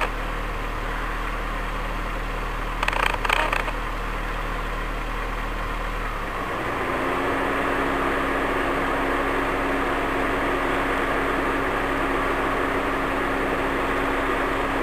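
An engine running steadily at idle, its hum changing to a higher steady tone about six and a half seconds in. A brief rattle of clicks comes around three seconds in.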